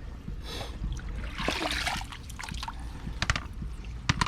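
Water splashing and trickling as a pond skimmer basket is lifted out, with a few sharp knocks of plastic near the end.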